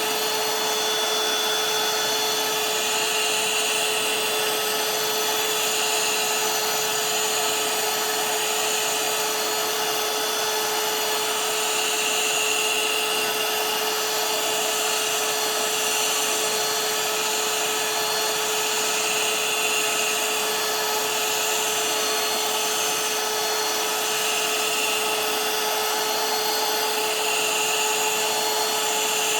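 Ungar heat gun on its high setting running steadily, its fan blowing a continuous rush of air with a steady whine.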